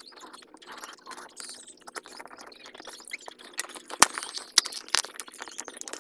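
Cardboard parcel and its plastic packing tape crackling and tearing as they are ripped open by hand, in irregular crinkles and snaps, with one sharp knock about four seconds in.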